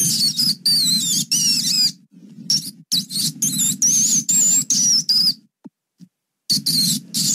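Mouse squeaking: quick runs of high, wavering squeaks in three spells, with short breaks about two seconds in and again about five and a half seconds in.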